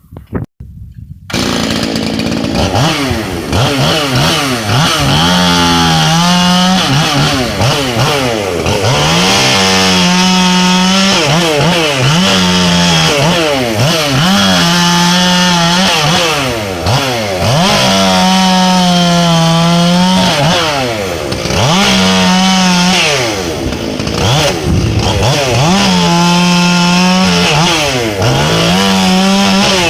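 Gas chainsaw with a full-chisel chain cutting very dry, hard black oak firewood. It revs up, holds a steady pitch under load through each cut, then drops back, about eight times in a row.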